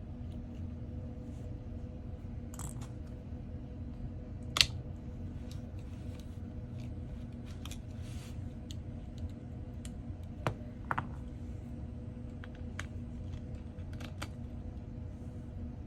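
Scattered small clicks and taps of hand tools on a smartphone's parts during disassembly, the sharpest about four and a half seconds in, over a steady low hum.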